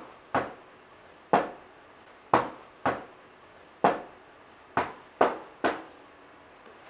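A series of sharp knocks, about nine of them, at uneven intervals of half a second to a second, each dying away quickly.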